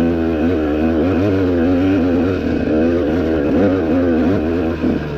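Off-road vehicle engine running under load on a rocky trail, its revs rising and falling constantly as the throttle is worked.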